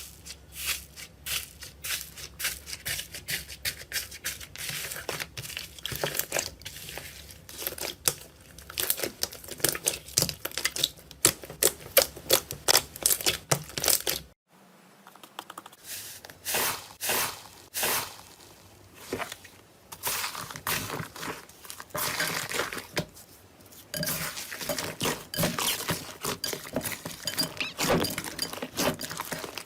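Slime being squeezed and worked by hand, making dense, irregular crackles and pops like crumpling. The sound breaks off sharply about halfway through, and the same kind of crackling squishing starts again.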